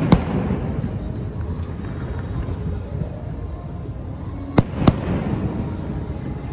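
Fireworks shells bursting: one sharp bang just after the start, then two more about four and a half seconds in, a third of a second apart, over a steady low rumble.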